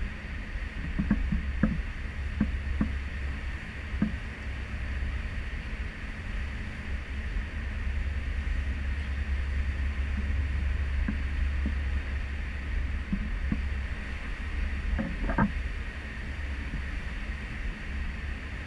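Serenade of the Seas under way at sea, heard from its stern: a steady low rumble from the ship with the hiss of churning water behind it. Scattered light knocks come through it, most in the first few seconds, with a louder one near the end.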